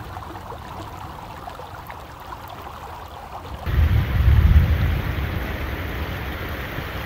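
Muddy flash-flood water streaming over desert ground, a steady rushing sound. About three and a half seconds in it jumps louder, where the flood spills over a low ledge in a small churning cascade, with a heavy low rumble for a second or so.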